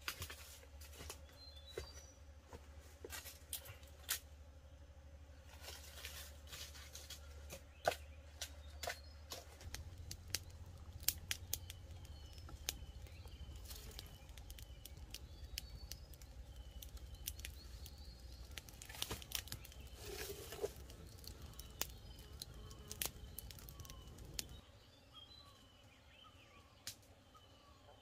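Footsteps crunching through dry leaf litter, then a wood campfire crackling and popping with sharp, irregular snaps. A few seconds before the end it drops quieter, leaving small birds chirping in short repeated notes.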